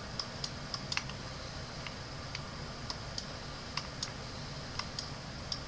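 Faint, irregular light clicks, about two or three a second, from the computer input device as brush dabs are made, over a low steady hiss.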